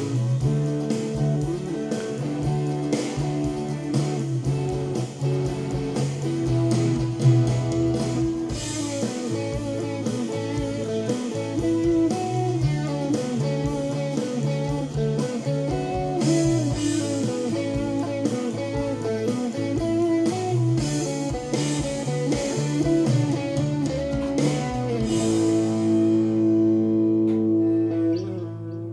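Multitrack band recording played back through a digital mixer for a virtual sound check: blues-rock with electric guitar, bass and drums. About 25 seconds in the drums drop away and a chord is held to the end.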